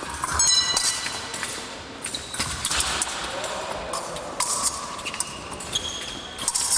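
Épée bout in action: blades clicking and ringing against each other, with fencing shoes squeaking and stepping on the piste.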